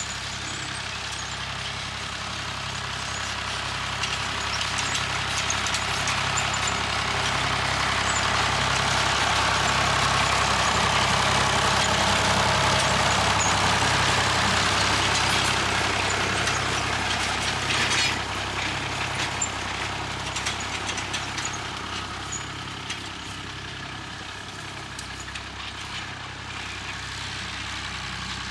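Massey Ferguson 35 tractor engine running steadily while it works a hay rake-tedder across the field, getting louder toward the middle and fading again as it moves away.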